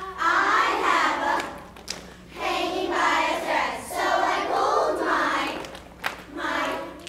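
A group of young children singing together in unison, in short phrases with brief pauses between them.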